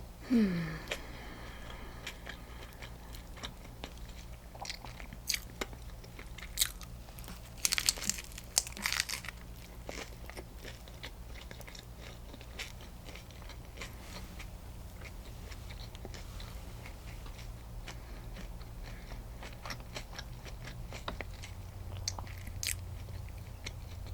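A person biting and chewing a sandwich on sourdough bread, with scattered crunches and mouth clicks that cluster and grow loudest about eight seconds in. A brief falling sound comes right at the start, and a low steady hum sits underneath throughout.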